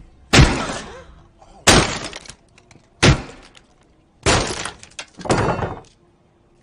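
A mobile phone being smashed on a table: five heavy crashing blows with breaking glass, the last two longer and crunching.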